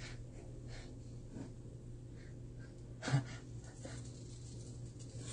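Quiet kitchen sounds: a steady low hum with faint rustling and clicks, and a single short metal knock about three seconds in as the hinged fish-shaped bungeoppang pan is closed.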